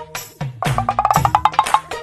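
Upbeat background music with a percussive, wood-block-like beat, and a fast run of short repeated notes through the middle.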